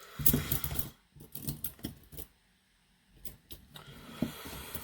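Irregular handling noise: a string of small clicks and knocks with some dull bumps in the first second, scattered clicks after, and a soft rustle near the end.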